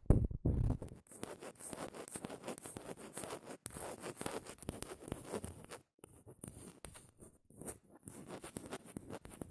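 Close-miked ASMR scraping meant to sound like scraping the skull: fast, repeated scratchy strokes with a few short pauses, after a second of heavier, lower rubbing at the start.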